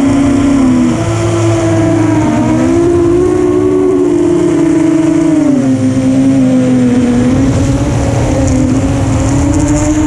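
FPV quadcopter's motors and propellers whining in flight, the pitch dipping and climbing again and again as the throttle changes.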